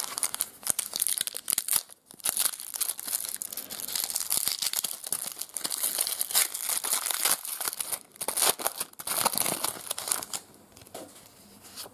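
Foil wrapper of an Artbox FilmCardz trading card pack being crinkled and torn open by hand, a dense run of crackling and tearing that dies down about ten seconds in, as the cards come out.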